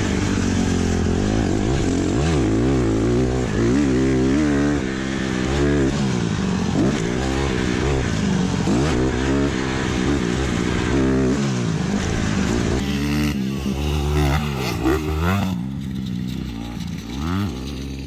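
Dirt bike engine being ridden hard, its pitch climbing and falling again and again as the throttle is opened and chopped. Near the end it drops to a lower, quieter running.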